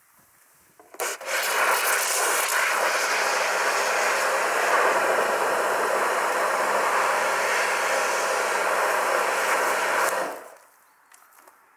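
Pressure washer gun spraying a jet of water into a plastic bucket of car shampoo, whipping it into foam, with the washer's pump motor humming steadily underneath. The spray starts abruptly about a second in and cuts off about a second and a half before the end.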